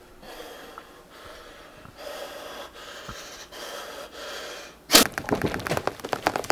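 Strained, wheezing gasps from a man bracing himself. About five seconds in, a sudden loud burst breaks in, followed by a rapid run of crackling ticks: the comic sound of him being electrocuted through jumper cables.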